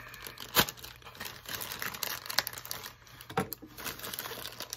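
Black Kydex inside-the-waistband holster being handled and turned over, its hard plastic making light clicks and taps, two sharper ones about half a second in and about three and a half seconds in, over a soft crinkling rustle.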